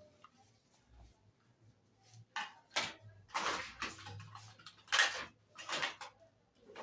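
A metal clipper blade stroked back and forth on a sharpening stone: about six short scraping strokes a little over half a second apart, starting about two seconds in.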